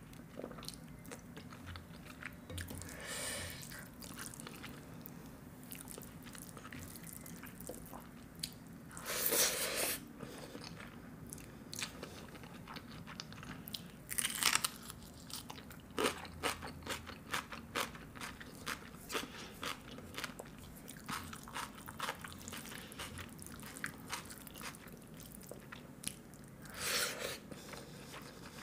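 Close-miked eating sounds of a person chewing mouthfuls of rice and flatbread, with wet mouth clicks throughout and four louder bursts, each under a second.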